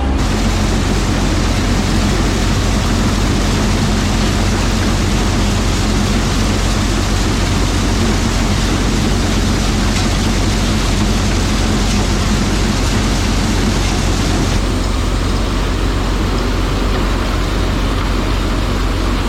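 Corn-shelling machinery running at a steady loud level: a constant engine hum under a dense mechanical rush.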